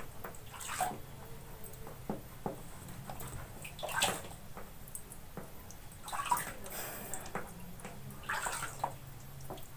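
Water splashing in a plastic basin as a hand scoops it up and pours it over a kitten being bathed, in a few brief splashes several seconds apart.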